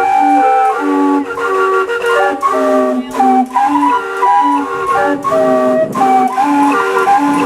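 Steam calliope playing a carousel-style tune, its whistles sounding several notes at once in quick, bouncing steps.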